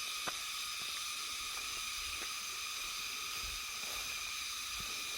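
Steady, high-pitched insect drone, with a few faint ticks scattered through it.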